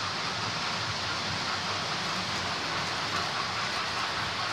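Model trains running on a model railway layout: a steady noise of electric motors and wheels on the track.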